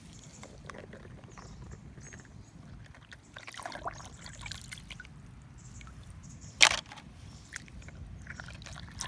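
Water sloshing with small scattered splashes, and one sharp knock about two-thirds of the way through.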